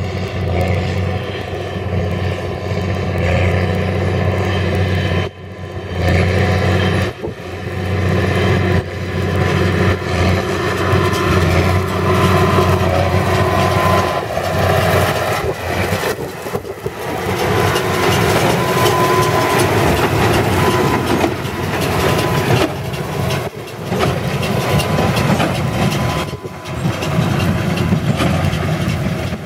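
Case tractor engine and a large square baler running steadily as the rig comes close and passes, baling straw from a windrow, with a few brief dips in level.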